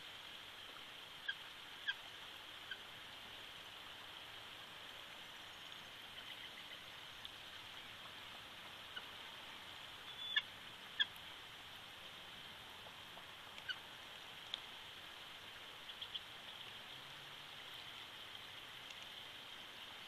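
Bald eagles at the nest giving scattered short, high chirps over a steady hiss: a couple near the start, the loudest pair about halfway, and a few more after that.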